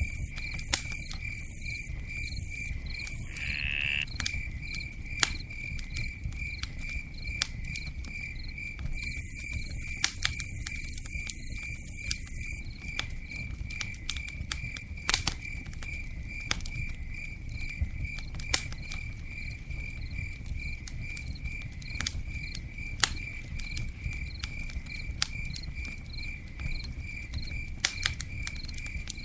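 Campfire burning with a low steady rumble and scattered sharp crackles and pops. An insect chirps steadily through it in even pulses about three times a second.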